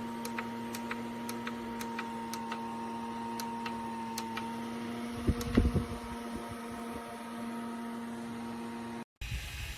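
A steady mechanical hum made of a few constant tones, with a string of light ticks through the first half and a brief low thump about halfway. It cuts off abruptly near the end.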